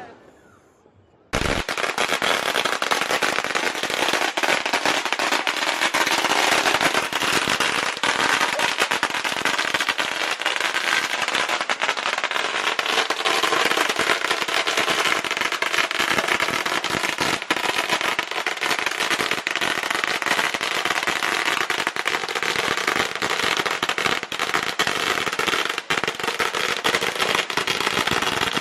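A long string of firecrackers going off: a dense, rapid crackle of pops that starts suddenly about a second in and carries on without a break.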